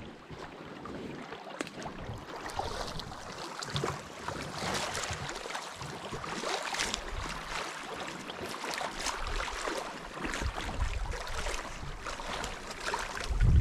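Small waves lapping at the sandy edge of a loch, a continuous patter of little splashes. Wind rumble on the microphone builds near the end.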